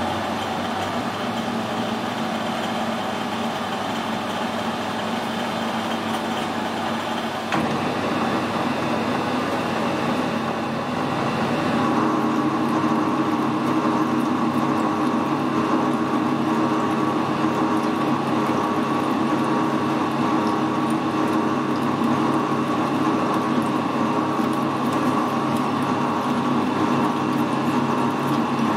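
Metal lathe running under power, its motor and gear train humming with a steady whine, while a carbide threading insert screw-cuts a 24 × 1.5 mm thread in a steel bar. The sound steps up about seven seconds in and grows louder, with a stronger whine, from about twelve seconds on.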